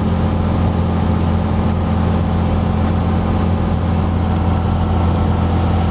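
Cessna 182's six-cylinder Lycoming engine and propeller droning steadily, heard inside the cabin in flight.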